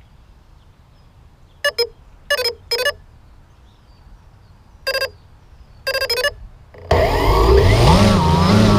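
Six short, pitched bursts, then about seven seconds in an engine starts and runs loudly, its speed rising and falling. It is a freshly rebuilt engine on its test run.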